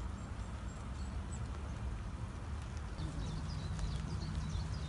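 Outdoor ambience: low rumble of wind on the microphone, with faint birds chirping from about halfway through and a low steady hum joining about three seconds in.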